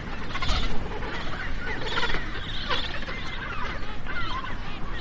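Magellanic penguins calling in a colony, many short overlapping calls.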